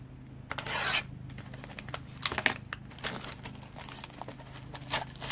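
Plastic wrapping on a trading-card box being crinkled and torn open, in irregular crackly flurries over a faint steady low hum.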